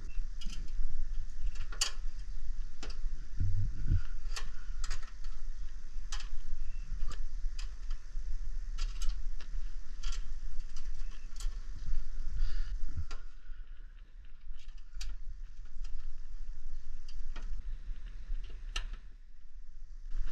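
Irregular clicks and light metallic taps from hand work on an air-conditioner condenser's electrical parts, over a steady low hum; the clicks thin out a little past the middle.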